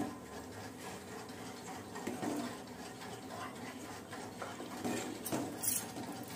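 Faint stirring of a thin fish curry with a steel ladle in a steel pot: soft sloshing with light scrapes and clinks of the ladle against the pot, and a sharper clink about five seconds in.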